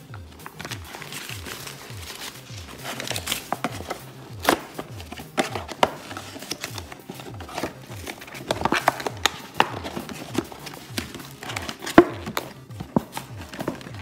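Paper food wrapper and a cardboard takeout box crinkling and rustling as they are handled, with scattered sharp clicks, the sharpest about three quarters of the way through. Background music with a steady low beat plays underneath.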